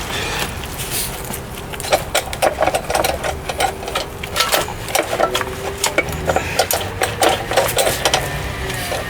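Old dashboard wiring harness being pulled out, with a quick, uneven run of clicks and rattles that is busiest in the middle.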